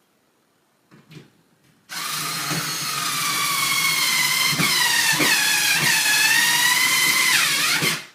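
Electric drill running for about six seconds after a short blip about a second in. Its motor whine sags in pitch briefly several times as the bit bears on the work, then cuts off.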